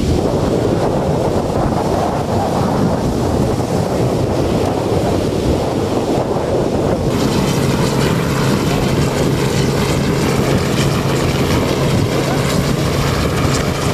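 Wind buffeting the microphone over breaking surf; about halfway through, the steady hum of a low-flying helicopter comes in and stays.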